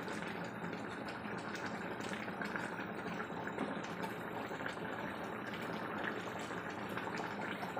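Chicken curry with coconut milk and potatoes bubbling at a steady, vigorous boil in a pot.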